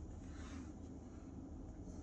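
Faint, steady low hum of city traffic heard muffled through window glass, with a soft brief hiss near the start.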